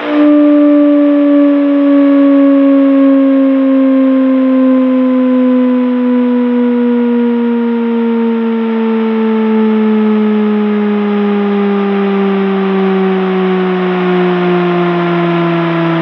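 Sine test tone received by a Galaxy DX2547 CB base radio and played through its speaker, a loud hum that glides slowly down in pitch from about 300 Hz to about 160 Hz, with a buzzy edge and a steady hiss behind it. The sweep drops below the radio's listed 300 Hz low-end receive response, testing how low the receiver still passes audio.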